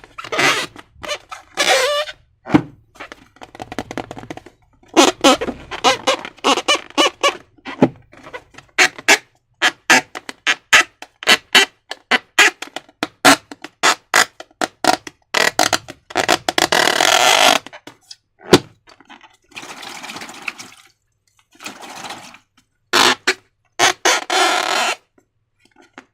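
Slime being squished and worked by hand: wet squelches with quick runs of sharp crackling pops, and a few longer squishy stretches.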